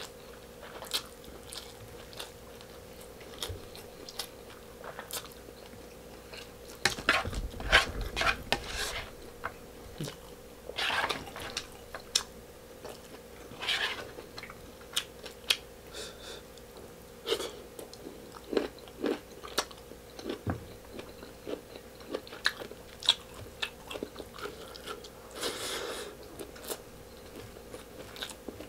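Close-miked mouth eating sounds: chewing and smacking on rice and stewed beef, with irregular wet clicks and crunches. A busier stretch of louder clicks and a low thump comes about seven to nine seconds in, over a faint steady hum.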